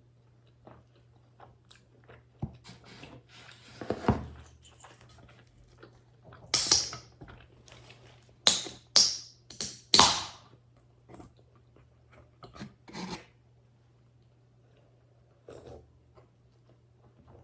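Close-up eating sounds of pepperoni pizza: irregular bites and crunchy chewing of the crust, loudest in a cluster of sharp crunches around the middle, over a faint steady low hum.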